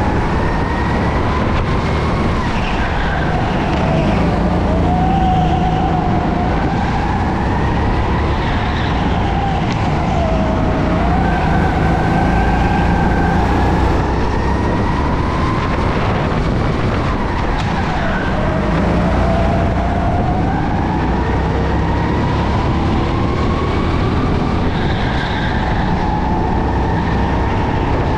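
Go-kart engine racing at high revs, its pitch climbing and dropping again every few seconds as the kart speeds up and slows, over a steady low drone.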